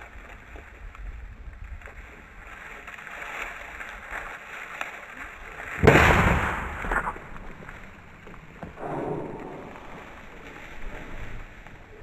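A single shotgun shot about six seconds in, sharp and loud, dying away over about a second, fired at a quail flushed in front of a pointing dog. Wind buffets the microphone throughout.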